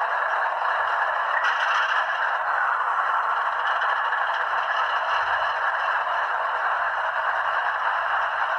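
Model diesel locomotive's sound decoder playing a diesel prime mover through a small speaker: a steady, thin, rattling engine sound with no bass, and a higher hiss joining about one and a half seconds in.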